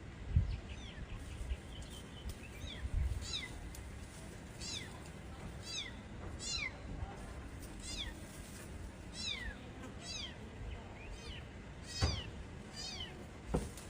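Kittens mewing: a string of short, high-pitched calls, each falling in pitch, about one a second. A few low thumps are heard near the start and near the end.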